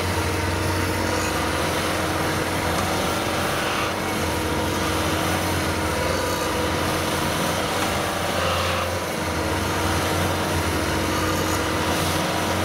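Diesel engines of a tracked rice-hauling tractor and a combine harvester running steadily under heavy load, pulling the combine out of deep mud where it is bogged.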